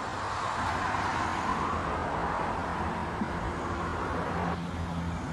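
Road traffic going by: a steady rush of tyre and engine noise that swells a second or so in and drops away suddenly near the end.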